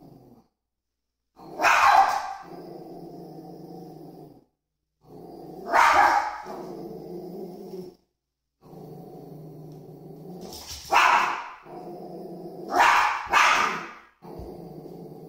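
Small curly-coated dog growling steadily and barking sharply about five times, a warning aimed at a cat.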